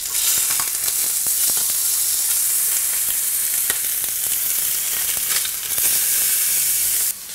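Pieces of cod fillet searing in hot oil in a nonstick frying pan over high heat: a steady, loud sizzle with scattered spitting pops as the fish browns. The sizzle drops away suddenly shortly before the end.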